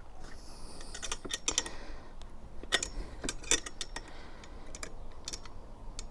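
Irregular light clicks and taps of plastic and metal parts being handled and fitted together during assembly of a garden shredder, with a brief rustle near the start.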